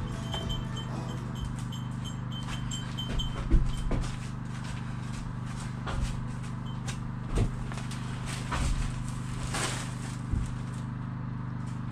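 Scattered knocks and clicks of hands-on work, the loudest about three and a half seconds in, over a steady low hum, with a short hiss about two-thirds of the way through.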